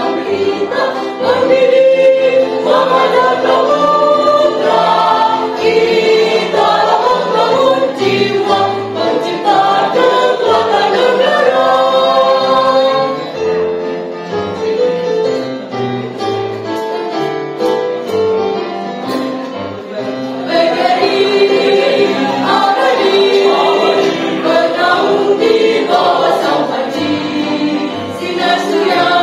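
Mixed choir of men's and women's voices singing a march in parts, softer through the middle and full volume again about two-thirds of the way in.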